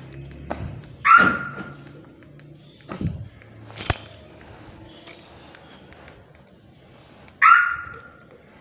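Car security system chirping twice, about six seconds apart, as the remote key fob is pressed. Between the chirps come a few clicks and thunks from the door handle and lock.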